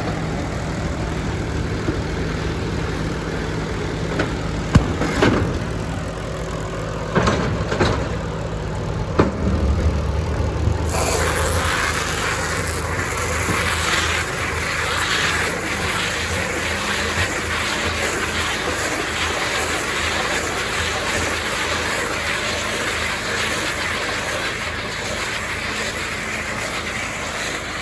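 Deutz-Fahr 5130 TTV tractor running steadily with a baler, with a few sharp knocks in the first half. About eleven seconds in, a louder, broader rattling noise joins the engine and keeps on.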